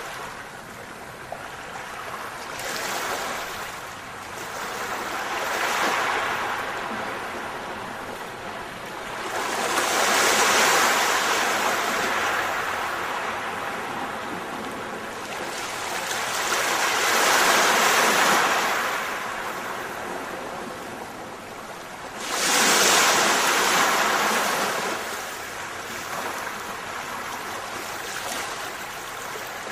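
Ocean surf: waves breaking and washing in, a wide rushing hiss that swells and fades about five times, each surge several seconds long, the sharpest about three quarters of the way through.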